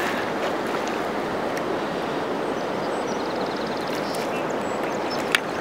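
Steady rushing of flowing river water, with one sharp click near the end.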